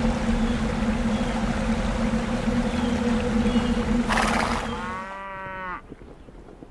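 A steady hum with a low, even tone for about four seconds, cut off by a short rush of noise; then a cow lows once, a call under a second long that drops in pitch at the end, and faint knocks follow.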